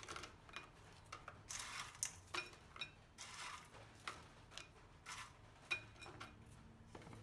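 Pieces of maizena biscuit being broken by hand and dropped onto mousse in a glass dish: an irregular scatter of short, dry crunching and crackling sounds, with a few light taps against the glass.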